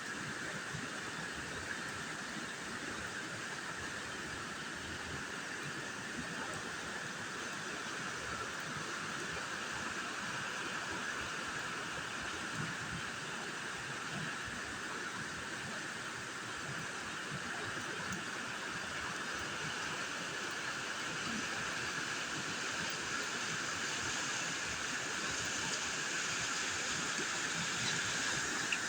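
Water pouring steadily over a small man-made waterfall in a creek: a continuous rushing hiss that grows a little louder near the end.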